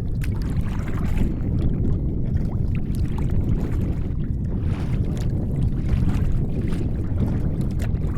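Water lapping and splashing irregularly against a kayak's hull, over a steady low rumble of wind on the microphone.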